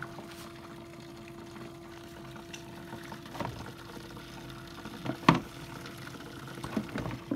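Hydroxy (HHO) gas generator running, its electrolysis cells and water bubbler giving a steady bubbling, with a steady low hum that stops about five seconds in. A few hard plastic knocks from the cell box's lid being handled, the loudest about five seconds in.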